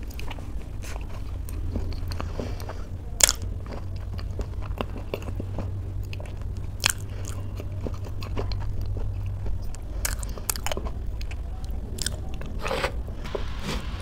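Close-miked chewing of a mouthful of oatmeal bowl, with soft wet mouth clicks and a few sharper crunches about 3, 7 and 10 seconds in, over a steady low hum.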